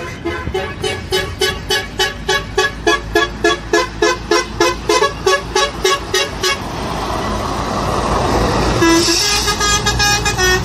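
Lorry horn sounding in a long run of short, rapid toots, about three a second. It then gives way to the rising rush of the lorry's engine and tyres as it passes close by, with the horn sounding again near the end.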